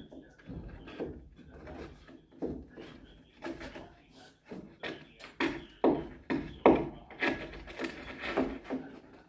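Irregular wooden knocks and clunks, one or two a second, loudest around the middle, as of wood being handled or struck.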